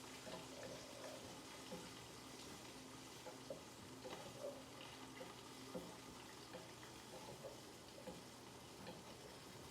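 Faint sizzling of flour-dredged pork chops frying in hot grease, with scattered small pops and crackles over a low steady hum.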